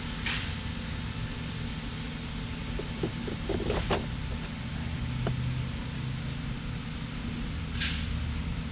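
Steady low mechanical hum, like a fan or air conditioner running, with a few faint short clicks about three to four seconds in and again just after five seconds.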